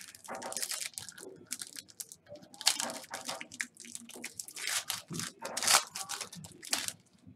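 Foil trading-card packs being torn open and handled: irregular crinkling and tearing rustles, the loudest about a third of the way in and again near three-quarters through.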